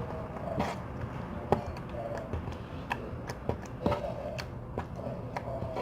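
Freshly activated homemade slime being squeezed and worked by hand, giving irregular sharp clicks and pops, roughly one or two a second.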